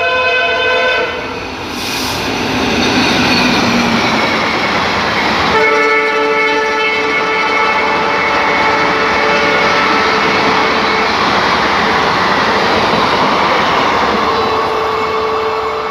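WDM-3A diesel locomotive's horn sounding as it approaches at speed, then the heavy running noise and rail clatter of the locomotive and coaches passing close by. The horn sounds again from about five and a half seconds in and holds for several seconds.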